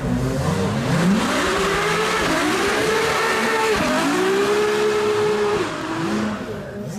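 Ferrari LaFerrari's V12 engine revving, its pitch climbing and falling back about five times in quick succession.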